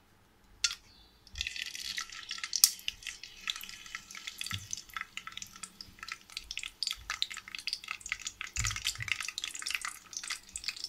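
Curry leaves and marathi mokku hitting hot groundnut oil in an iron kadai, crackling and spluttering with many quick pops as they temper. The crackle starts about a second in, after a single tap.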